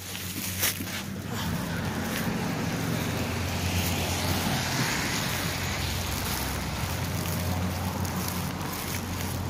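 Steady rushing air noise on the phone's microphone, with a low hum beneath it. It swells about a second in and then holds steady.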